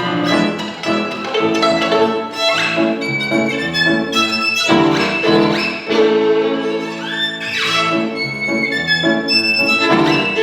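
Violin playing a lively showpiece over piano accompaniment, with several quick upward slides in pitch in the violin line.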